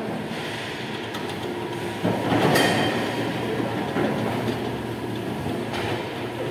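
Linde T20 electric pallet truck driving across a wet factory floor: steady motor hum and rolling rumble, louder from about two seconds in, with a brief high squeal soon after.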